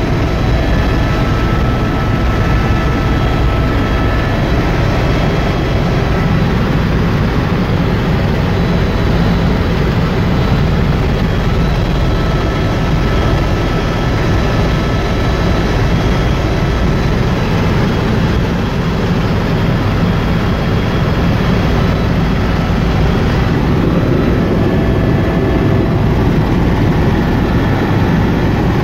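Helicopter in flight heard from inside the cabin: the steady drone of the engine and rotor, with a faint high whine above it.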